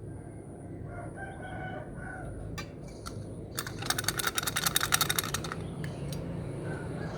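Small plastic beads pouring and rattling into a bucket for about two seconds in the middle, a dense run of rapid clicks, with a few single taps of beads before and after. A rooster crows faintly in the background about a second in.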